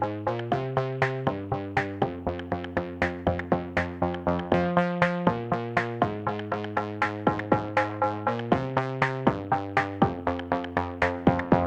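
Background electronic music: quick repeating synth notes, about four a second, over steady chords that change every second or two.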